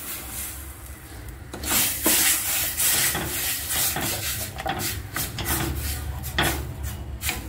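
Wooden spatula stirring a thick tomato-tamarind liquid in a stainless steel kadai, with irregular scraping strokes against the pan. The hiss of the liquid hitting the hot pan dies away over the first second or so.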